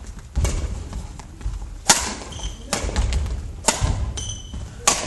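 Badminton rackets striking a shuttlecock in a doubles rally: five sharp cracks about a second apart, the loudest about two seconds in. Court shoes squeak briefly on the wooden floor and footfalls thud between the hits.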